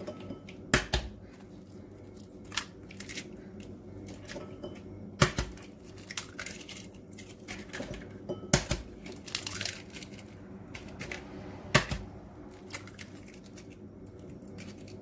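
Eggs being cracked one after another into a plastic mixing bowl: four sharp cracks about three seconds apart, with smaller crunches and crinkles of the shells being pulled apart between them.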